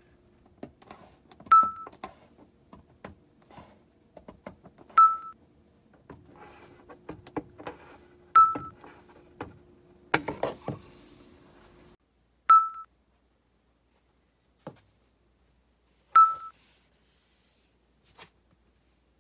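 Thin PVC plastic sheet being handled and cut with scissors: rustling, crinkling and clicking snips. A sharp click with a short high ping repeats about every three and a half seconds and is the loudest sound.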